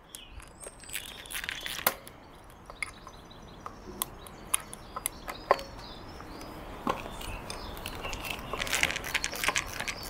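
Screwdriver driving a screw to refit a strimmer's carburettor: scattered small clicks and taps, getting busier near the end, with faint birdsong behind.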